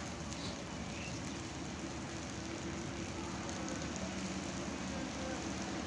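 Heavy rain falling steadily, an even dense hiss.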